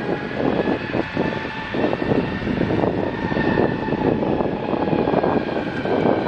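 Jet airliner's engines running loud and steady, a dense rush with several high whining tones running through it.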